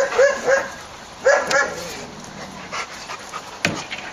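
German Shepherd giving short, high yelping barks in quick runs: three at once, then three more about a second later. A single sharp knock comes near the end.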